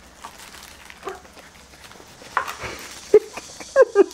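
A chef's knife slicing green tangerines on a cutting board, with a few sharp knocks of the blade on the board after about two seconds. Near the end a toddler makes short high vocal sounds.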